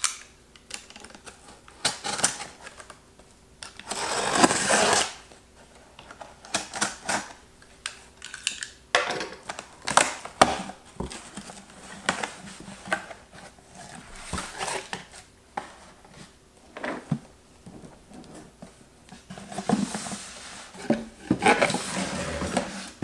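A cardboard shipping box being opened by hand: a utility knife slitting the packing tape, cardboard flaps folded back and a boxed jigsaw puzzle slid out, with many short knocks, taps and scrapes of cardboard. A second of louder scratchy noise comes early, and a longer scraping rustle near the end as the puzzle box is pulled free.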